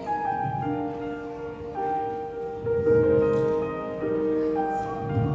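Slow keyboard music: soft sustained chords, the notes changing about every second.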